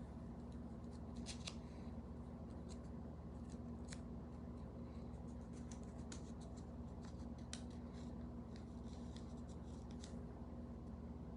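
Faint scattered small clicks and brief rustles over a steady low electrical hum.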